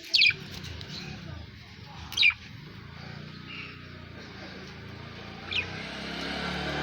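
A bird gives three short, sharp chirps, each sweeping quickly downward, spaced a couple of seconds apart. Under them runs a low background sound that grows louder near the end.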